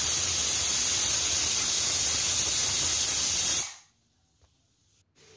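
Pressure cooker whistle venting steam: a steady, loud hiss, the sign that the cooker has come up to pressure. It cuts off suddenly about three and a half seconds in.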